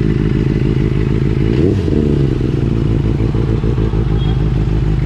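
Benelli 600i inline-four motorcycle engine running steadily, with a brief change in revs about two seconds in.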